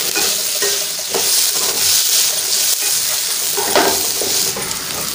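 Chopped vegetables sizzling in hot oil in a kadai while a spatula stirs and scrapes them around the pan, with a couple of sharper scrapes about one second in and near four seconds.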